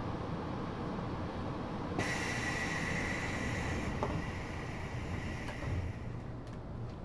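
Interior of an Eidan 6000-series subway car at a station stop as the doors close: a low rumble, then about two seconds in a steady high-pitched tone starts abruptly and fades out near the end, with a few faint clicks.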